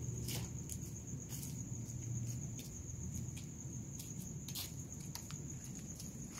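Crickets trilling steadily at one high pitch, with scattered faint clicks and a low hum underneath.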